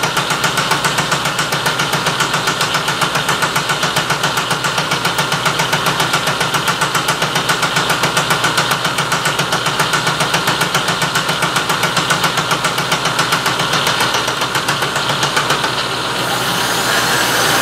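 Vertical milling machine cutter taking a 0.010-inch cut along the edge of a quarter-inch steel bar held in a vise: a steady, rapid pulsing from the cutter's interrupted cut. Near the end the pulsing gives way to a smoother, steadier running sound.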